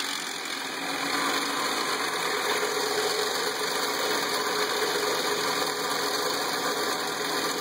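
Nissan VQ35DE 3.5-litre V6 idling steadily with a timing chain rattle, the sign of worn timing chain tensioners and guides.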